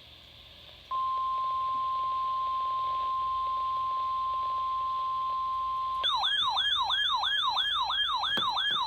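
NOAA Weather Radio warning alarm tone, sent as part of a routine weekly test: a steady single tone starts about a second in and holds for about five seconds. It then gives way to a siren-like warble, a falling sweep repeating about four times a second.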